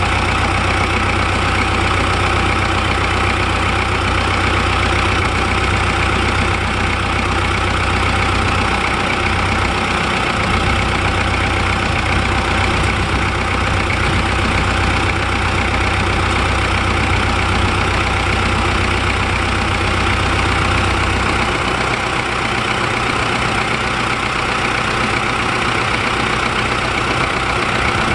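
Unmounted diesel engine running steadily at idle on a test run after repair. Its deep low hum weakens about two-thirds of the way in.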